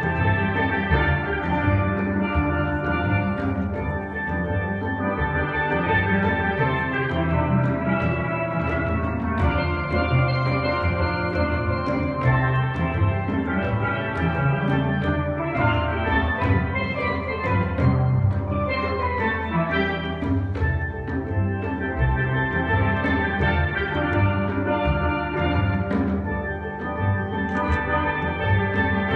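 Steel band playing together: an ensemble of steel pans, from high lead pans down to deep barrel-sized bass pans, sounding a continuous, busy stream of struck notes.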